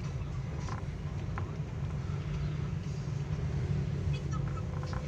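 Steady low rumble of a car's engine and tyres, heard from inside a moving taxi's cabin.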